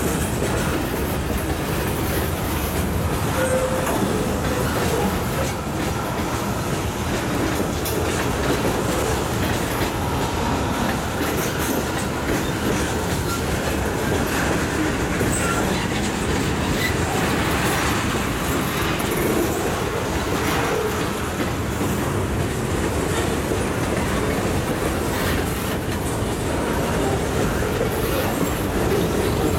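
Freight cars of a manifest train rolling past at a steady speed: a continuous rumble of steel wheels on rail with clicking over the rail joints and faint wheel squeal at times.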